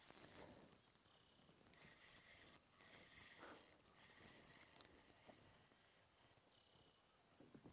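Faint ratcheting and clicking of an ultralight spinning reel as a hooked trout is played and reeled in, loudest in the first moment.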